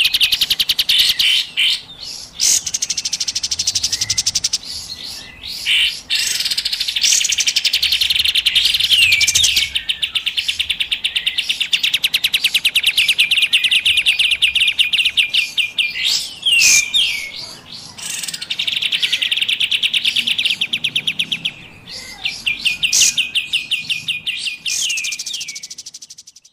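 Recorded kapas tembak bird calls played as a lure: long, fast, rapid-fire trills, repeated in bursts of several seconds with short pauses between them. The sound fades out at the end.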